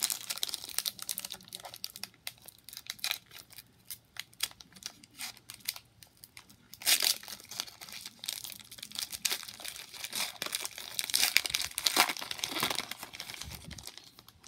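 Foil wrapper of a Select basketball card pack crinkling and tearing as it is pulled open by hand. The crackling grows denser and louder from about halfway through, easing off near the end as the cards come out.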